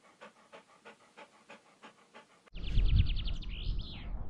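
Dog panting, about three pants a second and growing fainter, laid over as a sound effect. About two and a half seconds in it cuts off, and a louder low rumble of wind on the microphone comes in with a short burst of high, rapid chirps.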